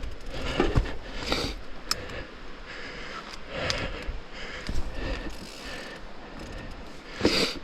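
Downhill mountain bike running over a rough trail: irregular mechanical rattling and clicking from the bike, with several short noisy bursts as it hits bumps.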